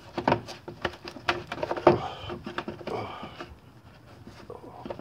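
Plastic air-intake parts clacking and clicking as gloved hands push them into place, with a run of sharp knocks in the first two seconds. After that it turns quieter, with light rustling and taps.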